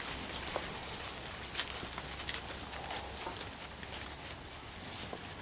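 Steers moving about on pasture: scattered light hoof steps and rustling, with an even outdoor hiss.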